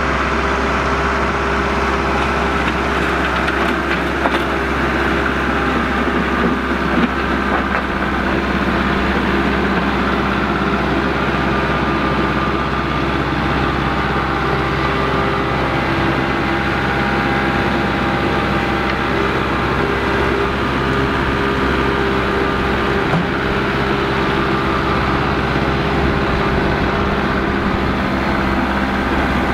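Kubota MX5400 tractor's diesel engine running steadily under load while grading dirt, pushing with the front loader bucket and pulling a land plane.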